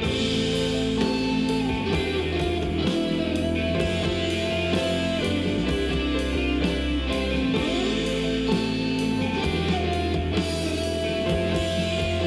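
Rock song played back through JBL LSR305 studio monitors: a passage without singing, of electric guitar over bass and a steady drum beat.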